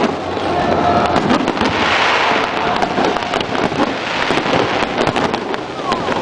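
Fireworks display: a rapid string of bangs and pops, with a hissing, crackling swell about two seconds in.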